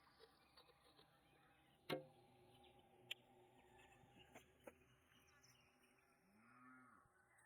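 Near silence: faint outdoor ambience with a few soft knocks and a brief faint buzz near the end.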